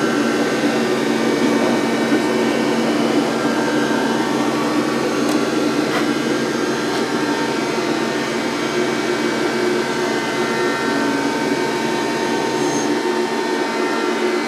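Steady mechanical hum and whir of running machinery, with several constant tones over a noisy hiss. A low rumble underneath cuts out near the end.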